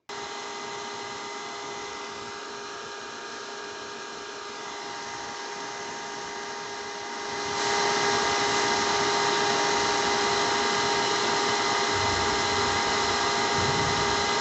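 HP ProBook 6470b laptop cooling fan running loud and continuously: a steady whirring hiss with several steady whining tones, getting louder about halfway through. The noise comes from dust built up in the fan and its exhaust passage.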